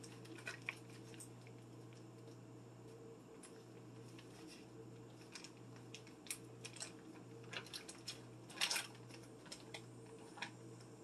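Faint, scattered clicks and crinkles of a small paper or plastic packet being handled, with a little cluster of them late on, over a steady low hum.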